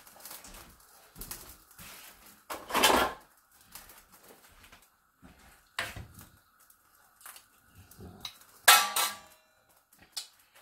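Kitchen clatter at a gas stove: scattered light knocks from a steel frying pan of tomato sauce and its wooden spoon, with two louder clatters about three seconds in and again near nine seconds.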